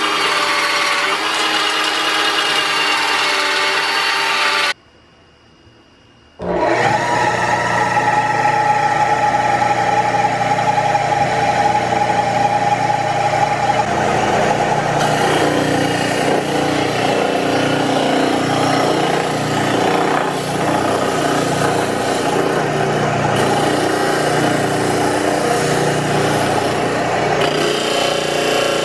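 A cordless drill runs for the first few seconds. After a short gap the 3/4-horsepower, 1725 rpm electric motor of a home-built 12-inch disc sander starts and runs with a steady hum. From about halfway, a block of wood is pressed against the spinning sanding disc, adding a rough rubbing sound over the motor.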